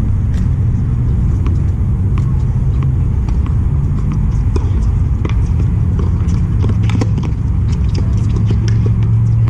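A loud, steady low rumble, with faint sharp pops of tennis balls being struck by racquets during a rally.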